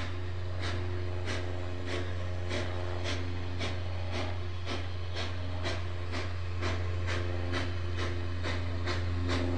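Small steam tank engine working steadily, its exhaust chuffing about twice a second over a steady low hum.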